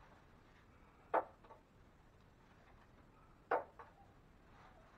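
Drywall knife clacking against the edge of a mud pan twice, about a second in and again at about three and a half seconds, the second with a lighter click just after: the knife being loaded with joint compound between passes of skip-trowel texturing.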